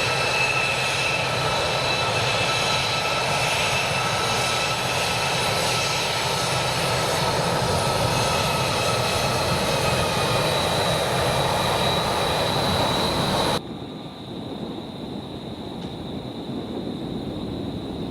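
Jet airliner engines running loud and steady, a rush with high whining tones over it. It cuts off abruptly about three-quarters of the way through, leaving a quieter rush with a faint high whine.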